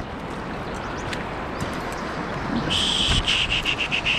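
River water running steadily. About two and a half seconds in, a high, pulsed chirring starts, around eight pulses a second, and runs to the end.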